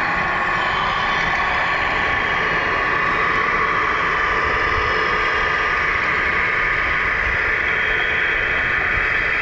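Motors and drivetrains of 1/14-scale Tamiya RC semi trucks running steadily, a continuous whirring hum.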